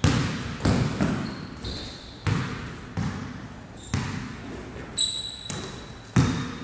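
Basketball being dribbled on a hardwood gym floor: about ten uneven bounces that echo in the hall. From about five seconds in, sneakers squeak on the court with a thin high note.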